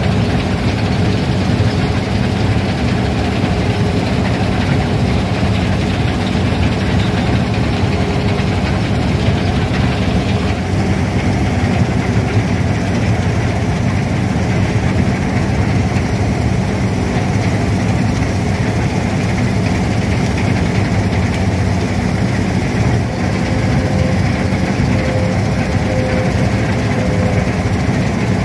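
Old New Holland combine harvester running steadily while cutting triticale, heard from its open operator's platform: engine, reel, cutter bar and threshing machinery blend into one dense, continuous noise.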